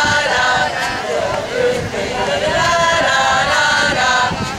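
A group of women singing a team cheer song together, with held notes.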